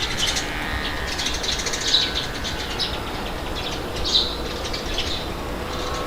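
Birds chirping, short high calls repeated every second or so, over a steady rush of wind.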